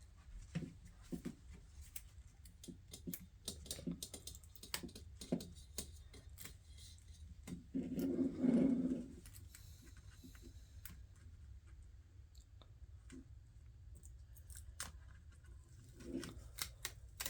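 Scattered small clicks and crinkles of handling as adhesive Talon grip tape is peeled and pressed around a Glock pistol's polymer frame, over a faint low steady hum. A short louder low murmur comes about eight seconds in.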